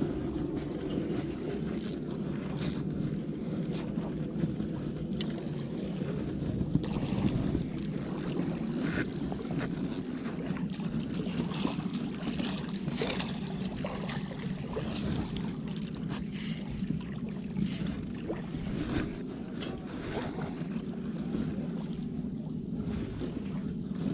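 A steady low rumbling noise with scattered light clicks and knocks throughout.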